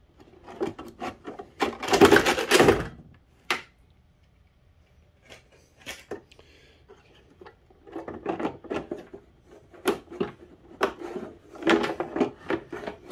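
Hands fitting parts and wiring into a plastic electrical enclosure: a loud rustling scrape about two seconds in, then scattered clicks and a quick run of small clicks and knocks near the end as a mounted layer is pressed into place.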